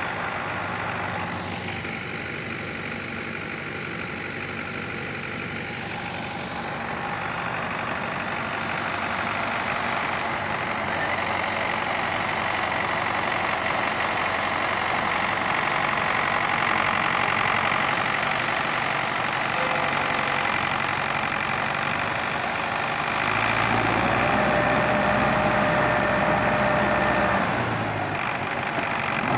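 Tractor diesel engines running steadily as a T-40 tractor tows an MTZ-82.1 tractor on a cable. The engine sound grows louder and heavier for a few seconds near the end.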